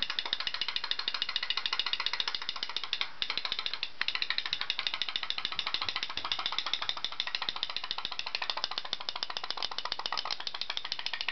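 Putt-putt (pop-pop) steam boat's candle-heated boiler popping in a rapid, even rattle as it drives the toy boat across the water. The fast clicks come from the boiler's thin metal diaphragm flexing as water flashes to steam and is sucked back in.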